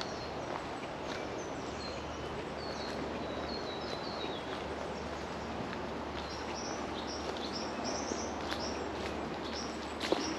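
Small songbirds giving runs of short, high chirps: a falling series a few seconds in, then a quicker run of rising chirps later. Under them is a steady rushing background noise. There are a few soft ticks, with one sharper click near the end.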